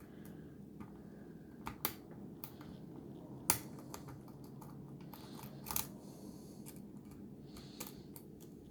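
Faint, scattered clicks of a lock pick and tension wrench working the security pins inside a Schlage lock cylinder during single-pin picking, about five clicks with the sharpest one about three and a half seconds in, over a low steady hum.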